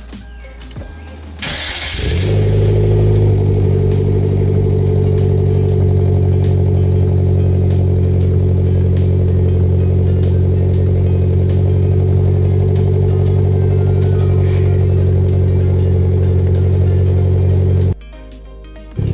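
Hyundai Genesis Coupe 2.0T's turbocharged four-cylinder engine cranking briefly and catching about two seconds in, running at a slightly raised idle for a moment and then idling steadily. The engine sound drops out for about a second near the end.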